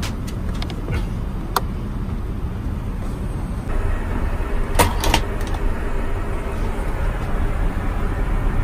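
Steady in-flight cabin noise of an Airbus A380, which turns a little louder and brighter a bit past a third of the way in. There is a sharp click about a second and a half in, and two quick clicks about five seconds in as the lavatory door's slide lock is pushed shut.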